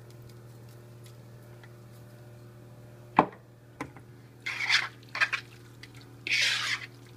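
Hands squishing and mixing diced raw flounder, mango and avocado in a soy-sauce dressing in a plastic bowl, in three short wet bursts in the second half. A single sharp knock comes about three seconds in, before the mixing.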